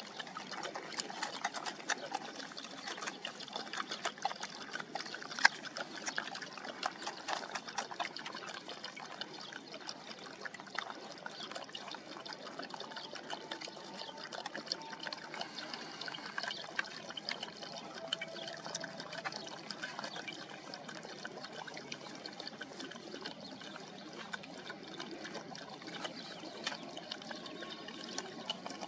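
A dog lapping water from a bowl, a fast run of small wet clicks. Later come the softer wet smacks of puppies suckling at their mother.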